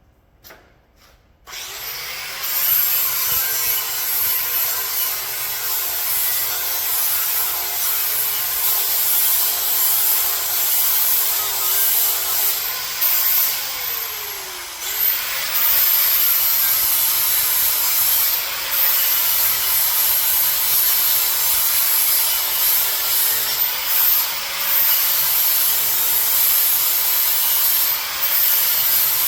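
Angle grinder grinding down the corner edges on the ends of square steel tubes to make a bevel for welding. Its motor note dips and recovers as it is pressed into the metal, with a brief easing-off near the middle.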